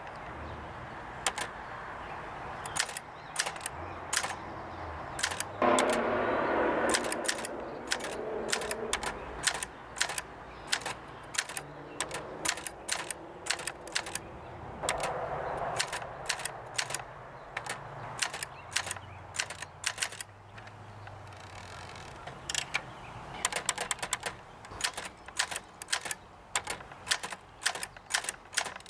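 1958 Adler Universal manual typewriter being test-typed: a long run of irregular keystrokes, each typebar striking with a sharp clack. There are short pauses and a couple of longer rasping sounds between the runs.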